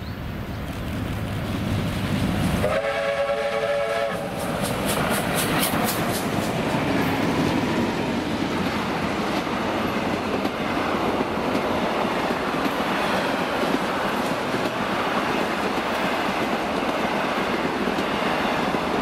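Victorian Railways R class steam locomotive R707 passing: a short whistle blast about three seconds in, then a quick run of beats as the engine goes by. A long train of carriages follows, rolling past with steady wheel and rail clatter.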